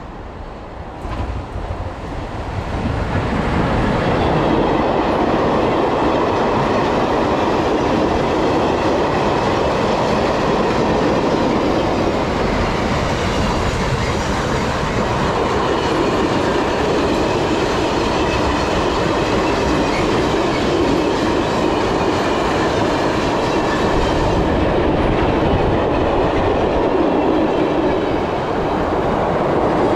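A train passing close by on the line. It grows louder over the first three or four seconds, then stays loud and steady.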